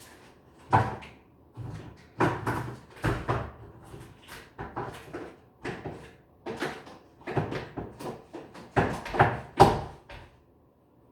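An irregular run of about twenty knocks and bangs, like cupboard or door banging, over some ten seconds. The loudest come a little under a second in and near the end, and the banging stops about a second before the end.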